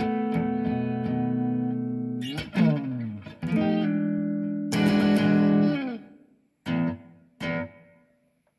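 Electric guitar played through a Kemper Player amp profiler: a held chord rings for about two seconds, then a slide into further chords, one dropping in pitch as it ends, followed by two short clipped stabs before the sound dies away near the end.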